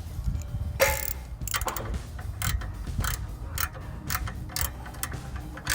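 Ratchet wrench clicking in short uneven runs as it turns the 10 mm clamp bolt that tightens a turbo whistle into an exhaust tip. There is a sharp knock a little under a second in.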